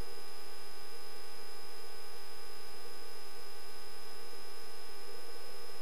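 Steady hiss and electrical hum of a light aircraft's intercom audio feed, with several faint fixed tones held throughout and no change in level.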